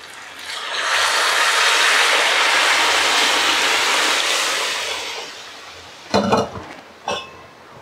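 Hot masala, potato and eggs in a pan sizzling loudly as boiled masoor dal is poured in; the sizzle swells, holds for about four seconds, then dies away. Two short knocks follow near the end.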